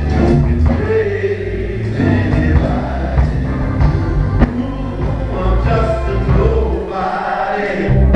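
A men's choir singing gospel music over a heavy bass accompaniment, with a few sharp beats.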